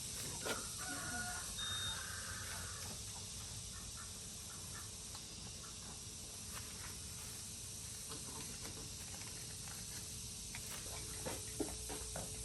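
A rooster crows once, in a call of about two seconds near the start, over steady outdoor background noise with a few faint clicks.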